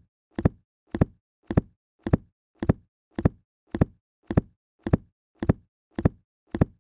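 A book dropped flat onto a hard surface: one short, slapping thud, repeated identically as a loop about twice a second.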